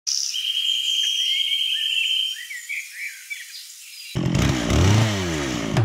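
Birds chirping, with one long trill followed by short chirps. About four seconds in, music with a drum beat and bass comes in.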